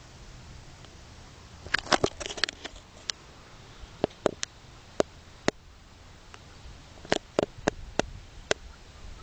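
A string of short, sharp clicks: a quick burst of several about two seconds in, single clicks roughly every half second after that, and another run of them from about seven to eight and a half seconds in.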